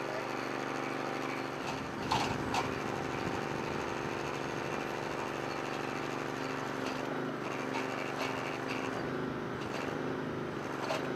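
Engine-driven hydraulic power unit running steadily as it drives a helical tieback through a wooden bulkhead into the soil. The hum roughens a little under load about two seconds in, with two sharp metallic knocks then and a few more near the end.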